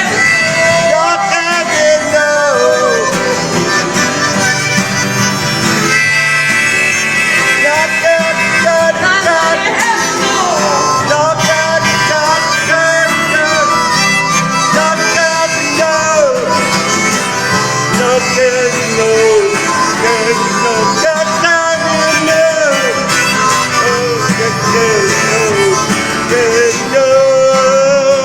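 Music: a lead melody that slides and bends between notes over a steady accompaniment.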